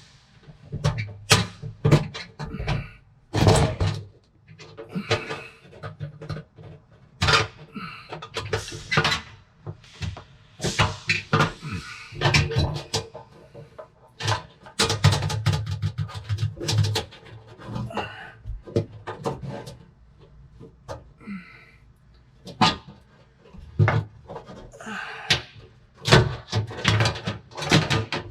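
Clicks, knocks and rattles of a Frigidaire oven's bake element being handled and its wire connectors pushed onto the terminals, ringing in an echoing empty room, with music playing in the background.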